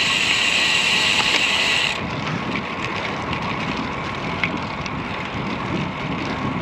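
Road bicycle riding noise: wind rushing over the microphone and tyres rolling on the road. A loud high hiss cuts off abruptly about two seconds in, leaving a quieter steady rush with a few faint ticks.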